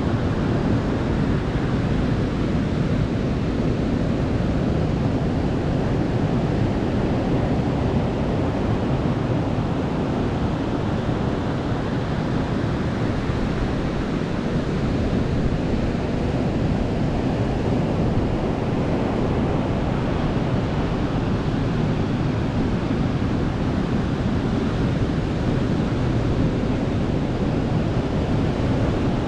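Sea waves breaking and washing on a beach, a steady surf rush with gentle swells and falls, with some wind on the microphone.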